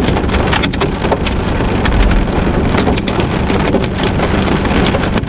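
Large hailstones striking a vehicle, a dense run of irregular sharp cracks and knocks over a steady hiss of heavy rain and wind.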